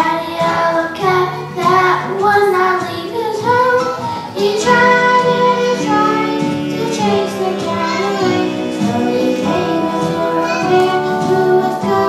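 A young girl singing a solo into a microphone over instrumental accompaniment, holding some notes.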